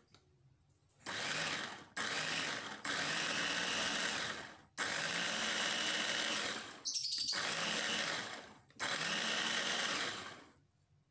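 Capsule Cutter Quatre mini chopper's motor and blades running in six short pulses of one to two seconds each, with brief pauses between, a steady whine throughout each pulse.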